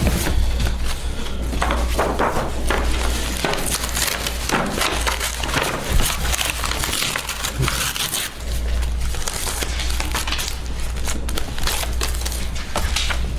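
Paper rustling and crinkling as sheets and manila folders are leafed through and handled near a table microphone, with many short crackles over a low steady hum.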